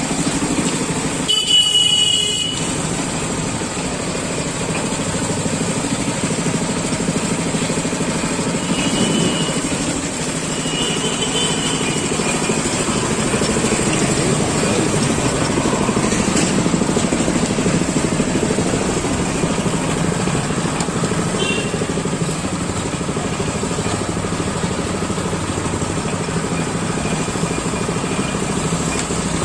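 Motor-driven sugarcane juice press running steadily, its spinning flywheel, belt and steel rollers crushing cane stalks. A vehicle horn honks once, loudly, about two seconds in.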